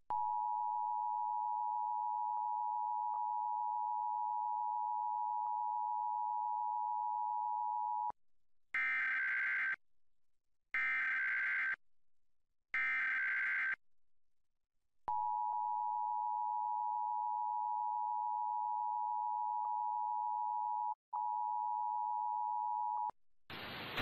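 Emergency Alert System test signal: the two-tone attention signal (853 and 960 Hz together) sounds steadily for about eight seconds. It is followed by three short screeching digital SAME data bursts, then the same two-tone attention signal again for about eight seconds, with a brief dropout near its end.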